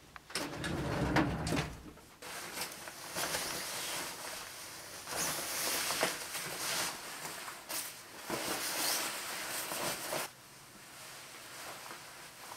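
Clothing rustling and swishing as a person pulls on winter layers, a jacket and scarf, with a dull bump near the start. The rustling dies down about ten seconds in.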